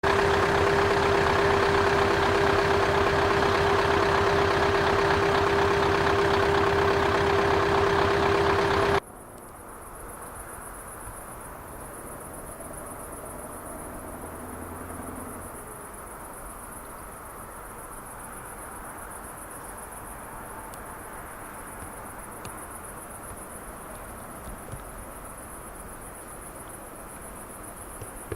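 Loud, steady running of a Scania truck engine through an open exhaust pipe, which cuts off abruptly about nine seconds in. After that, crickets chirp steadily, with a faint engine rumble for a few seconds.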